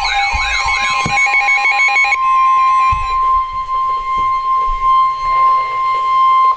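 Emergency weather alert tones. For about two seconds a warbling siren-style alarm repeats quickly over steady tones. Then a single steady high tone, the NOAA Weather Radio warning alarm tone that comes before a warning message, holds and cuts off abruptly.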